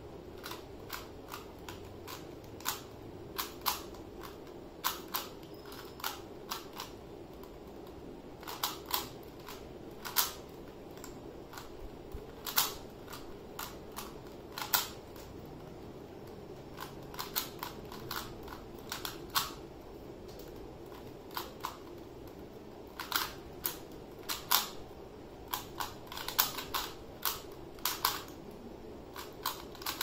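A 3x3 Rubik's cube being turned by hand during a solve: its plastic layers click as they turn, in irregular runs of quick clicks with short pauses between.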